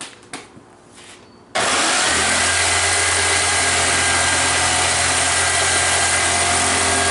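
An electric power tool switched on about a second and a half in: its motor whines up to speed within half a second, then runs steadily and loudly without load. A few light handling knocks come before it.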